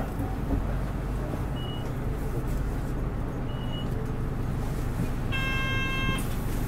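Interior sound of a Nissan Diesel Space Runner RA city bus: the diesel engine gives a steady low drone in the cabin. Two short, faint high beeps sound partway through, and an electronic chime lasting about a second comes near the end.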